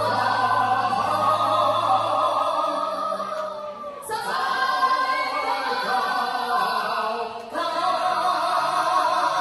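Singing over a backing track: long held notes, with short breaks between phrases about four and seven and a half seconds in.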